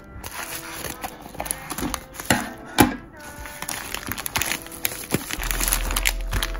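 Pink plastic mailer bag crinkling and rustling as hands pull it open and slide out the contents, with two louder crackles a little after two seconds and near three seconds in.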